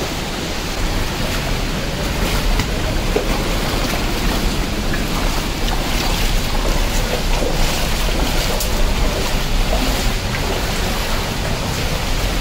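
Steady rushing of a waterfall and the stream running from it, with a low rumble underneath.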